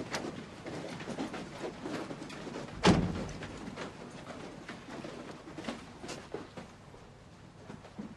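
A single loud thump about three seconds in, among light scattered clicks and knocks.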